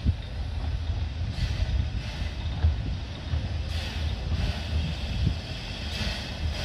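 Narrow-gauge steam locomotive Dolgoch, an 1866 0-4-0 well tank, chuffing slowly as it approaches with its train, the exhaust beats about one every 0.7 s and getting louder toward the end, over a steady low rumble.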